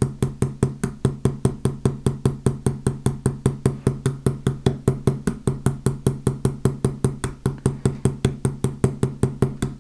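Rapid, even light tapping of a Fretz riveting hammer's slender pointed face on the end of a wire rivet, about five or six taps a second. The rivet's tail is being gently spread into a nail head.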